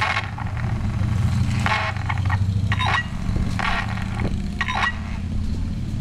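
Experimental electronic sound played through car-alarm loudspeakers mounted on two cars: a steady low rumbling drone, broken by short, higher, noisy bursts at irregular intervals.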